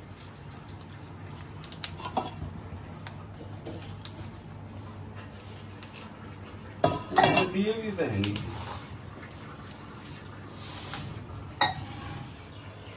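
Scattered clinks and knocks of a stainless-steel bowl and utensils as flour is mixed and kneaded into dough by hand, with a brief stretch of a woman's voice about seven seconds in.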